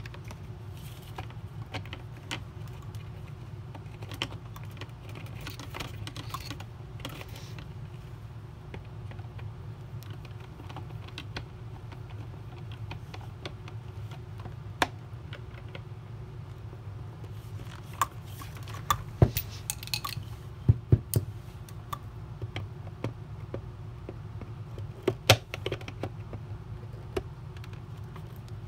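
Hands fitting plastic parts and small fittings of a Dyson DC40 vacuum's ball assembly: scattered clicks and taps of plastic and metal, with a burst of sharp clicks about two-thirds of the way through and a few more shortly after, over a steady low hum.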